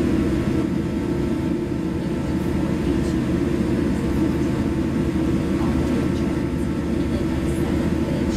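Steady low rumble of cabin noise inside a jet airliner whose engines are at idle while it waits before takeoff.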